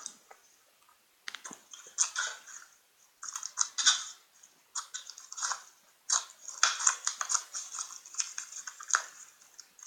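Slime being squeezed and poked by hand, giving irregular clusters of crackling clicks and pops with short pauses between them.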